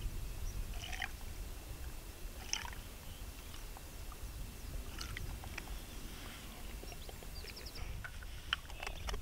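Steady low wind rumble on the microphone, with a few short, separate animal calls scattered through and a quick high trill near the end.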